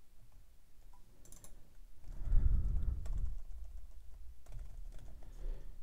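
Typing on a computer keyboard: scattered keystrokes in short runs. A low muffled rumble lasting about a second comes about two seconds in and is the loudest sound.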